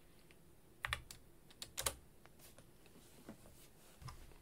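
A few keystrokes on a computer keyboard, faint separate clicks, the clearest about one and two seconds in, as a command is typed into a terminal.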